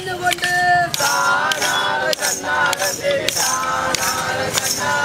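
Bharani pattu, a Kerala folk temple song, sung by a crowd of devotees: a single lead voice, then many voices joining in about a second in. Under it a sharp beat of about two strikes a second, from bamboo sticks struck in time.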